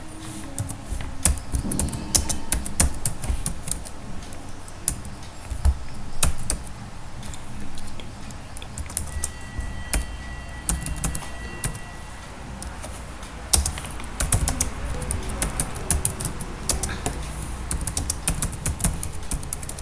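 Typing on a computer keyboard: quick runs of irregular key clicks, sparser in the middle stretch.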